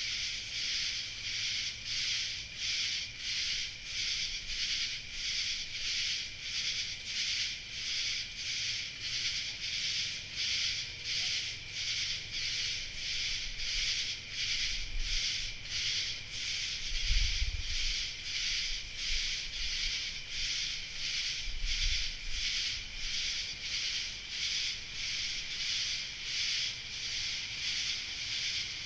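Chorus of night insects calling in a steady, even pulsing rhythm, high-pitched, with a few brief low rumbles around the middle.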